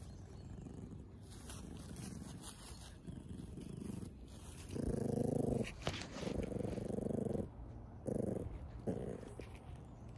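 A cat purring steadily, and from about halfway in a Zwartbles sheep sniffing and breathing right at the microphone: four loud, rough bursts, the longest over a second.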